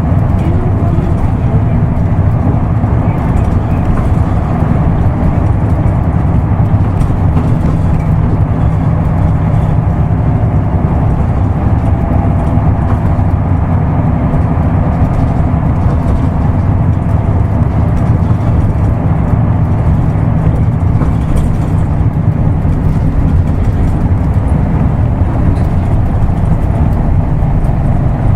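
Isuzu Erga Mio route bus's diesel engine running steadily under way, with road noise, heard from inside the cabin.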